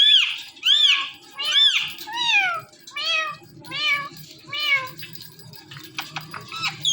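Indian ringneck parrot mimicking a cat's meow: about seven meows in a row at a steady pace, each rising and falling in pitch. Near the end come a few short, sharp calls.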